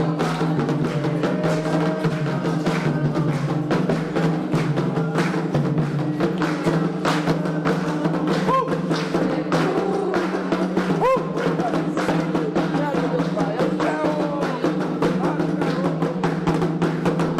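Candomblé ritual drumming on atabaque hand drums: a continuous, fast rhythm of dense strokes with no break.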